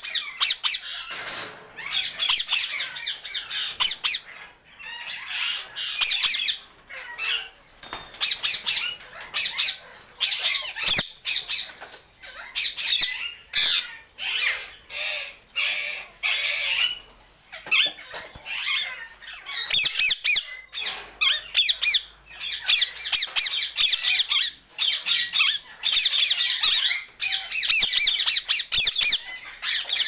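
Caged Alexandrine and ring-necked parakeets giving harsh, rapidly repeated squawks in quick runs with short gaps.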